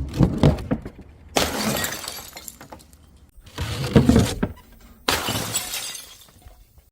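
Glass bottles shattering: four loud breaks one to two seconds apart, each a sudden crash that trails off over about a second.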